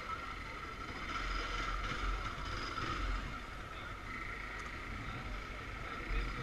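Motorcycle engine running at low revs while the bike creeps through slow traffic, under a low rumble of wind on the microphone.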